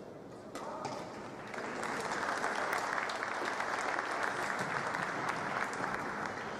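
Arena crowd clapping and cheering during a badminton rally, swelling about a second and a half in and holding steady. A few sharp knocks of racket strings striking the shuttlecock stand out from the crowd noise.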